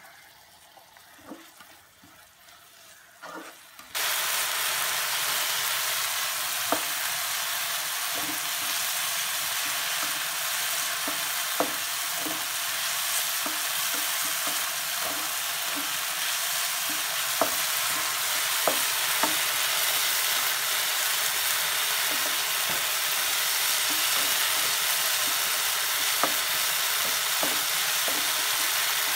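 Chopped onions and tomatoes sizzling in a non-stick frying pan, with a spatula knocking and scraping against the pan as they are stirred. The first few seconds are quiet with a few faint taps; the steady sizzle starts suddenly about four seconds in.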